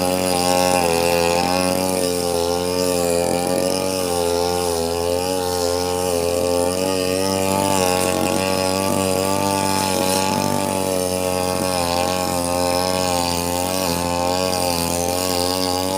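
Falcon 328 two-stroke brush cutter running steadily while cutting grass, its engine pitch wavering slightly as the load changes.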